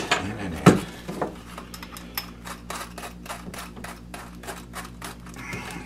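Quick run of light clicks, about five a second, from a screwdriver driving a screw to fasten an electrical outlet box to the wall, after a single sharp knock under a second in.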